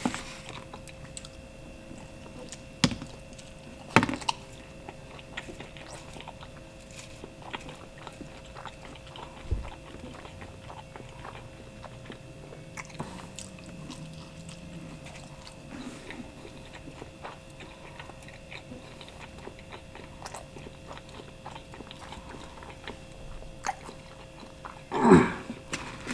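Chewing and biting of thick-crust pizza, with small wet mouth clicks and smacks, over a steady background hum. A brief louder sound comes near the end.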